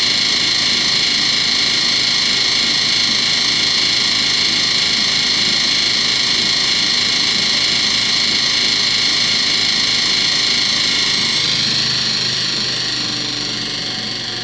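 Miele WMV960 front-loading washing machine during its spin, making a loud, steady high-pitched noise that the owner takes for a spin and vibration fault. About twelve seconds in, the noise starts to fade and drop lower.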